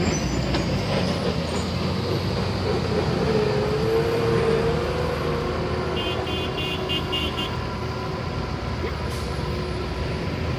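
Road traffic noise: vehicle engines running in a steady rumble, with a held tone a few seconds in and a quick run of about six high beeps just past the middle.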